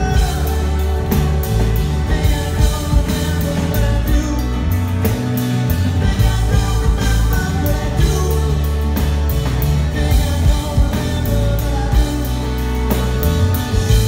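Live pop-rock band playing with a male lead vocal over it: drums keep a steady beat under heavy bass.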